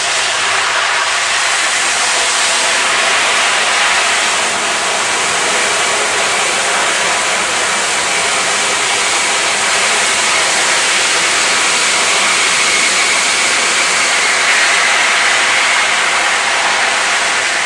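Boeing C-17 Globemaster III's four turbofan engines, a loud, steady jet noise as the transport passes close by at low level, with a high whine that grows stronger about three-quarters of the way through.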